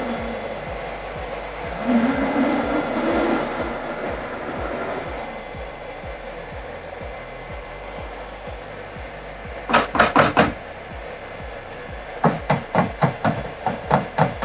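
Leftover SLS nylon powder poured from a metal overflow bin into the powder handling station's sieve, a soft hiss that fades after about five seconds. Then sharp knocks: four in quick succession about ten seconds in, and a faster string of them near the end.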